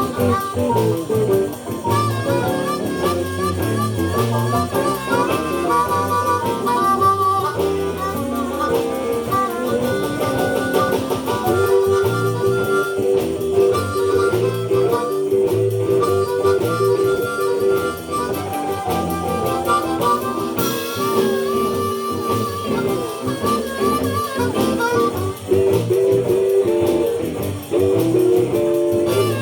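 Live blues band playing an instrumental stretch, a harmonica carrying the lead with held, wavering notes over guitar backing.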